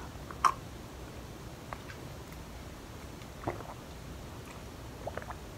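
A person drinking from a mug to wash down medicine: a few brief, soft swallowing and handling sounds over a quiet room, the clearest about half a second in.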